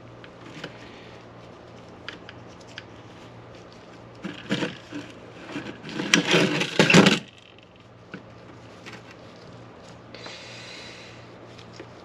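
Hands knotting a chainsaw's recoil starter rope and handling the starter parts: small clicks and taps, with two louder spells of scraping and rubbing about four and six seconds in, over a steady low hum.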